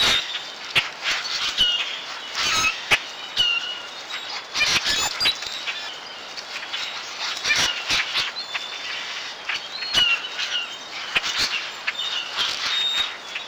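A flock of blackbirds calling, many short sharp chucks and brief squeaky whistles overlapping, with wings fluttering as birds take off.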